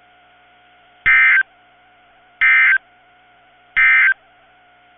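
NOAA Weather Radio SAME end-of-message data bursts: three short, buzzy digital tone bursts about a second apart, marking the end of the severe thunderstorm warning just read. A faint steady hum from the radio channel runs between them.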